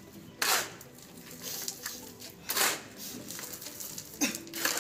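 Four short scraping strokes over a quiet background: one about half a second in, one about two and a half seconds in, and two close together near the end.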